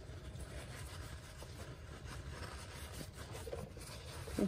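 Faint rubbing and rustling of a cloth shop towel in a gloved hand wiping around an ATV's oil filter, over a low steady background rumble, with one brief louder sound near the end.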